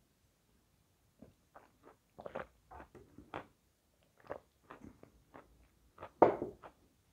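Close-miked chewing of a mouthful of edible chalk: a string of short, irregular wet crunches and mouth clicks, the loudest about six seconds in.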